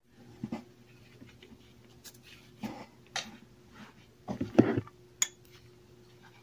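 Packed cornstarch crunching and squeaking as a gloved hand squeezes it in a glass dish, in several separate short bursts, the loudest about four and a half seconds in.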